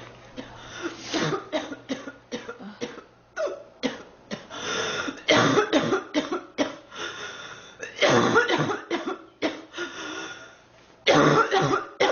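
A sick young woman coughing over and over in fits, short harsh coughs in clusters with throat clearing between them; the loudest fits come about five, eight and eleven seconds in.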